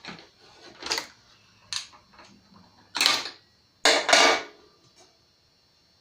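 Metal clanks and rattles of tools and bolted tractor parts being handled during a teardown: several short knocks, the loudest two about three and four seconds in, then quiet.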